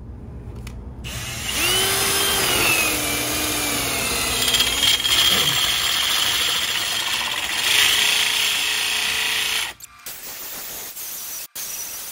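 A power drill spinning a concrete hole saw into a concrete wall, grinding loudly with a wavering whine. It starts about a second in and stops abruptly near the end.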